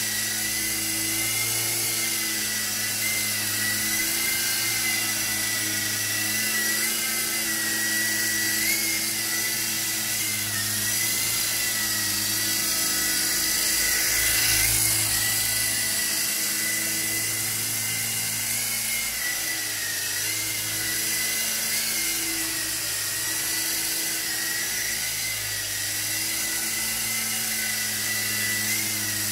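Small Silverlit RC toy helicopter flying: the steady high whine of its electric motors over the hum of the rotor, wavering slightly in pitch as the throttle changes, and loudest as it passes close by about fourteen seconds in.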